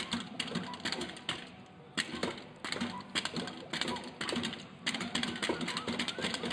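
Padded mallet hitting the pop-up heads of a whack-a-mole arcade game: rapid, irregular knocks, several a second, with a brief pause about one and a half seconds in.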